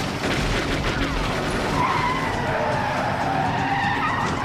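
Car tyres squealing over running car engines during a chase.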